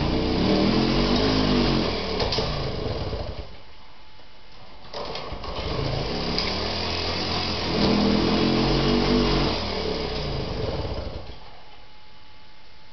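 A Piaggio Vespa 49cc two-stroke moped engine running and being revved, its pitch rising and falling with the throttle. It falls away about three and a half seconds in, picks up again about a second and a half later and revs up and down again, then dies away near the end. The moped is a hard starter that runs lean.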